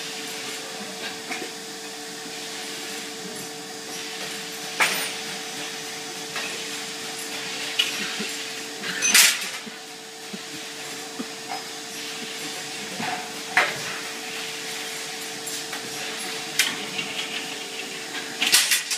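Rod-bending machine bending a steel rod into a rectangular table frame: sharp metallic clanks every few seconds, the loudest about nine seconds in, over a steady factory hum.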